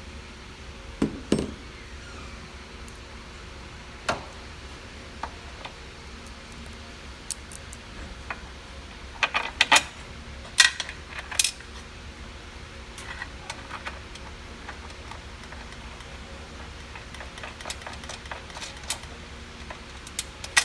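Scattered metallic clinks and knocks of hand tools and metal parts being handled during a drive shaft bearing replacement, with a cluster of sharper knocks about halfway through, over a steady low hum.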